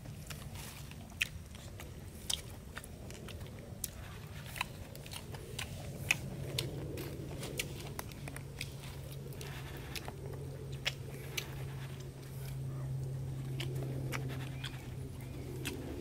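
A man chewing and eating cooked fish by hand, with many small scattered clicks and smacks of mouth and fingers. A steady low hum runs underneath, growing louder past the middle.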